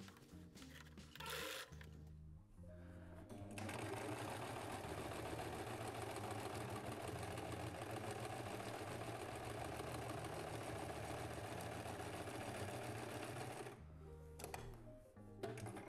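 Domestic electric sewing machine running steadily, stitching through layered, padded cushion fabric; it starts a few seconds in and stops near the end. Background music plays underneath.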